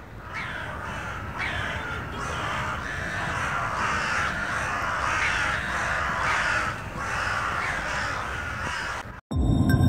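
A flock of crows cawing, many calls overlapping into a continuous chorus. It cuts off abruptly near the end, and electronic music starts straight after.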